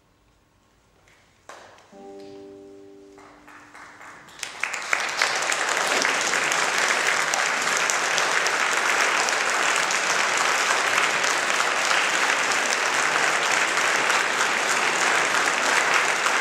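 A final chord on a nylon-string classical guitar rings and fades about two seconds in. About four seconds in, an audience breaks into applause that carries on steadily.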